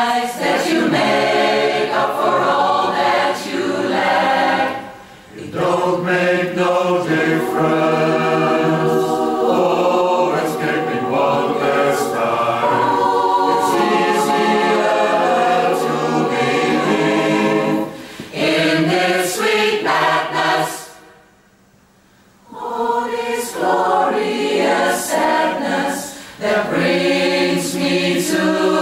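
Large choir singing a cappella in several voice parts, with no instruments. The singing drops briefly about five seconds in and stops for a pause of about two seconds about three-quarters of the way through before the voices come back in.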